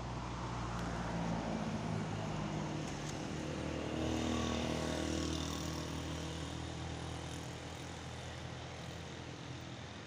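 A motor vehicle's engine going by, its note shifting in pitch, loudest in the first half and then fading away.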